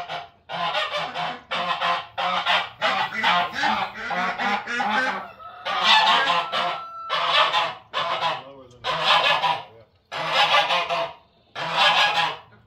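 Domestic geese honking: a long run of loud honks, one after another, several a second at first and then about one a second.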